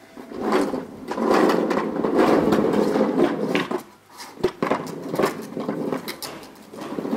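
Plastic wheels of a ride-on wiggle car rolling over tiled paving: a rumbling hiss that rises about a second in and holds for a few seconds, then turns fainter with scattered clicks and knocks.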